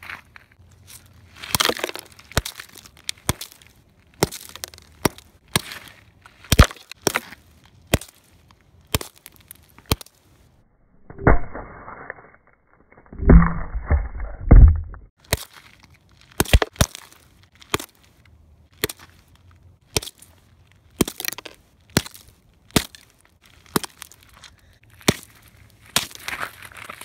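Claw hammer repeatedly striking a cylindrical lithium-ion cell lying on gravel, sharp cracking blows about one or two a second. Near the middle the strikes pause for a few seconds of muffled rumbling and knocking.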